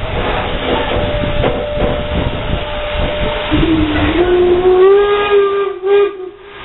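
Steam locomotive's running noise, a rumbling clatter, then its whistle sounds about three and a half seconds in. The whistle gives one long blast that slides up in pitch as it opens, holds for nearly three seconds and stops short near the end.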